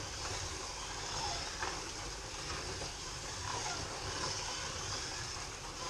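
Scalextric slot cars racing around a plastic track: a steady whir and rumble of their small electric motors and wheels running over the track.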